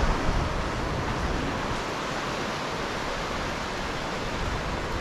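Steady hiss of small North Sea waves breaking and washing up on a sandy beach, with low rumbling gusts of wind on the microphone, strongest at the start.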